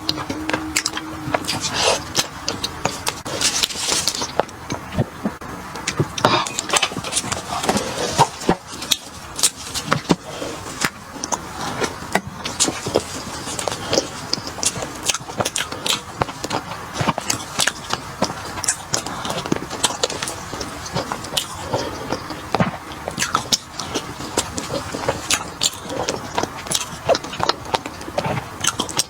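Close-up eating sounds: chewing and crunching food, with many irregular sharp clicks and crackles.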